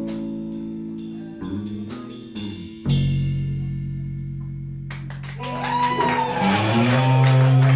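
Live rock band playing: held guitar and bass chords with single plucked notes, then about five seconds in the drums come in and the full band swells louder.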